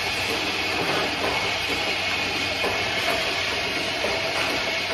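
Explosion-proof lighter-fluid filling and capping line running: a steady machine noise with a few light knocks from the filling and capping stations.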